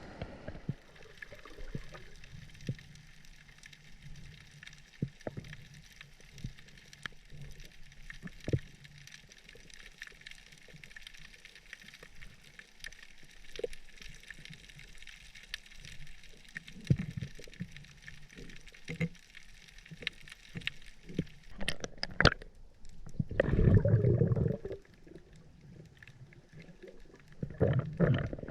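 Underwater ambience: a steady hiss scattered with many small clicks and crackles, a few low knocks, and a louder low rushing burst of water near the end.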